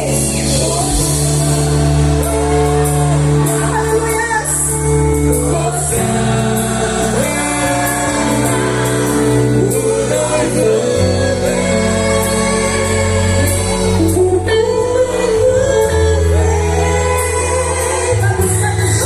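Gospel music performed live: voices singing a melody over held low bass notes that change every few seconds.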